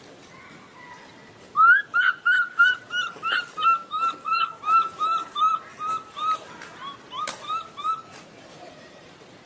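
Baby macaque giving a rapid string of short, high, whistle-like whimpering calls, about three a second, starting about one and a half seconds in and stopping shortly before the end.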